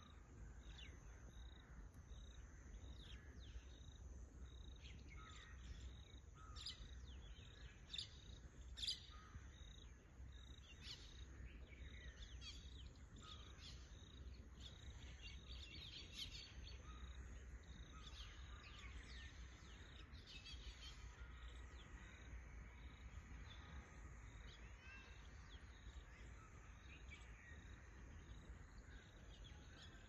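Quiet rural ambience: scattered short bird chirps and calls over a steady high-pitched insect buzz, with two louder sharp calls about eight and nine seconds in.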